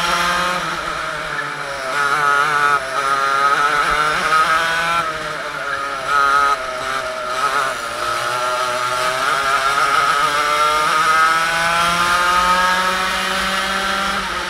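Two-stroke TKM kart engine heard from on board, revving up and down through corners with wavering dips in pitch in the first half, then climbing steadily in pitch under full throttle for the last several seconds.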